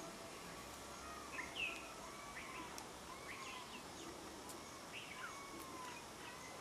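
Birds calling: short chirps and sliding whistled notes that repeat irregularly, faint over a steady outdoor hiss.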